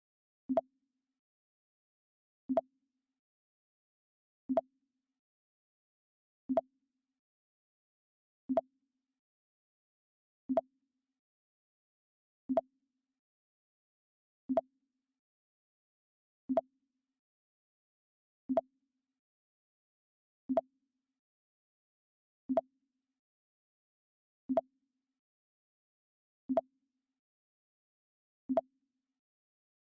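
The Mac OS X "Pong" alert sound, a short low blip, playing again and again about every two seconds with silence between.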